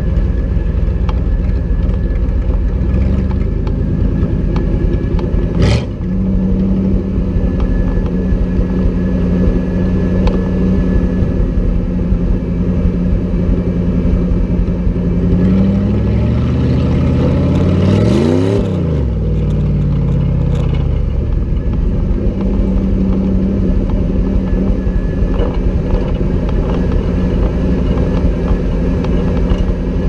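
Third-generation Camaro Z28's engine running as the car drives along a dirt road, revving up and back down about two-thirds of the way through. A single sharp click about six seconds in.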